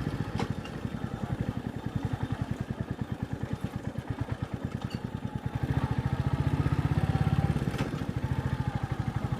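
Royal Enfield Meteor 350's single-cylinder engine chugging at low revs in gear, each exhaust beat distinct and even. It grows louder for about two seconds past the middle, then settles back.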